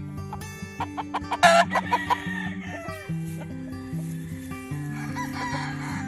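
Rooster crowing and clucking, loudest about one and a half seconds in, over background music with a steady bass line.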